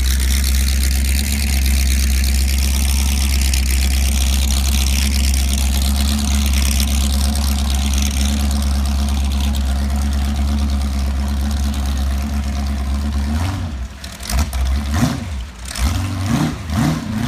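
Supercharged big-block Chevrolet V8 in a jet boat, idling steadily with a deep, even note, then blipped several times in quick succession in the last few seconds, its pitch jumping up and dropping back with each rev.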